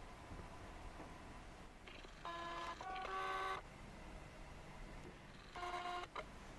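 Two short runs of steady electronic tones, with a change of pitch partway through the first run, over faint background hiss.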